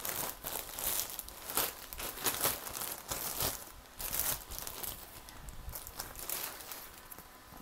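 White plastic mailer bag crinkling and rustling as it is pulled open and handled. The crackly rustles come in irregular bursts, busier in the first half.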